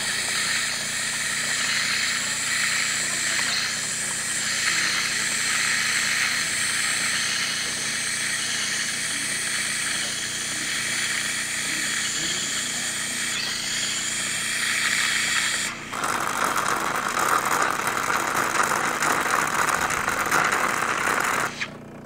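Jura Z8 super-automatic espresso machine brewing a latte: the pump and milk system run with a steady hiss while espresso and frothed milk pour into the glass at once. The sound changes character about 16 seconds in and stops abruptly just before the end.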